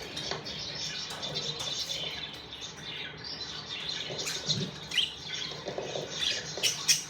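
Budgerigars chattering, a steady run of short high chirps and warbles, with a few louder sharp calls toward the end.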